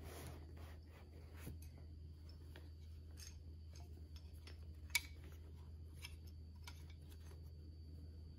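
Faint handling noises of a plastic and cloth 1/6-scale action figure being lifted and turned in the hands: light rubbing and small plastic clicks, with one sharper click about five seconds in, over a steady low hum.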